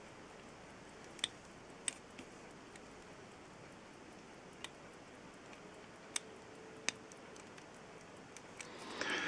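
Faint, sparse small metallic clicks, about five spread irregularly across the stretch, from a watchmaker's screwdriver and fingers working a case screw on an antique brass pocket-watch case.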